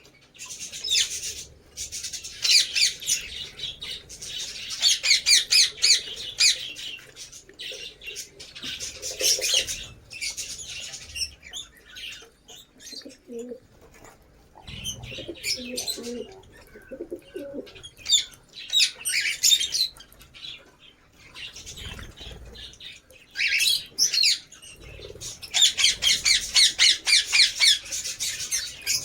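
Lovebirds chattering: bursts of rapid, high-pitched chirps that come and go, the longest near the end.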